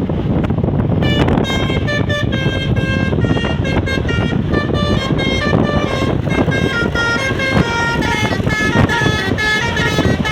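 A bus's Basuri V3 'telolet' musical air horn playing a quick tune of short notes that change in pitch. The tune starts about a second in, over a loud low rumble.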